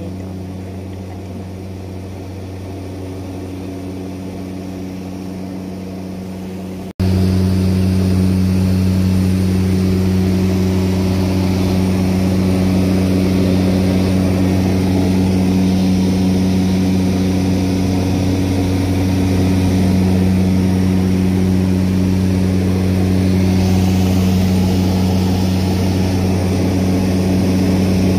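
Steady cabin drone of a propeller aircraft's engine and propeller in cruise, a low even hum. About seven seconds in it cuts briefly and comes back noticeably louder.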